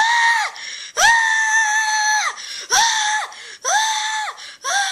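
A girl screaming five times in quick succession, high-pitched, each scream about half a second to a second long, the last one sliding down in pitch.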